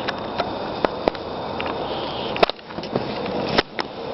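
A child with a tracheostomy and a Passy-Muir speaking valve breathing and sniffing, air puffing out through his nose, over a steady hiss with a few small clicks.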